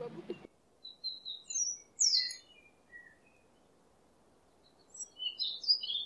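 Small songbirds chirping and twittering in short high calls. A quiet pause of a second or two comes in the middle, then a burst of calls near the end.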